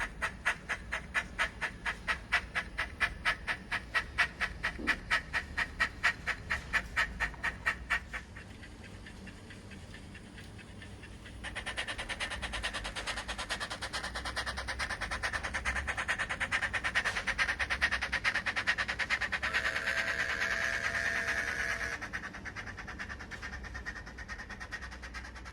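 Model steam locomotive sound from a Zimo DCC sound decoder playing through the loco's tiny onboard speaker: steady, evenly spaced exhaust chuffs. The chuffs drop away about eight seconds in, return faster and louder a few seconds later with a brief steady tone near the end, then fade.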